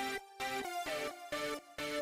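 Background electronic music in short, choppy chords, about three a second.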